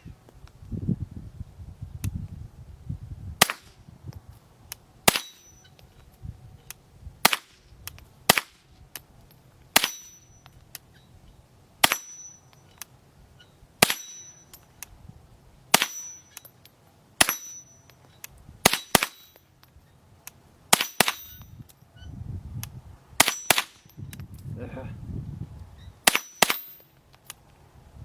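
A steady string of .22 gunshots, about one every one to two seconds, many followed by a short high metallic ring of the bullet striking a steel target.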